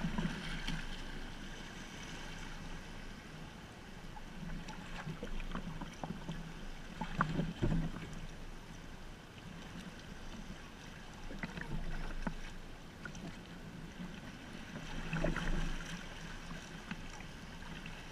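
Sea water lapping and sloshing against a kayak's hull as it is paddled, with a few louder surges of splashing every few seconds and small sharp ticks of water.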